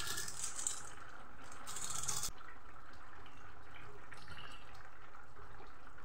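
A thin fish curry (jhol) simmering in a pan and being stirred with a wooden spatula, a steady wet bubbling and sloshing. Brief louder splashing comes twice in the first two seconds as the fish goes in and is stirred.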